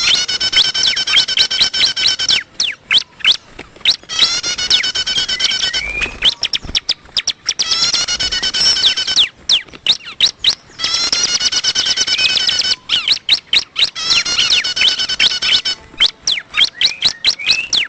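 Bar-winged prinia (ciblek) calling loudly in repeated phrases of rapid, buzzy chirps, each phrase lasting about two seconds, with sharp single notes between them.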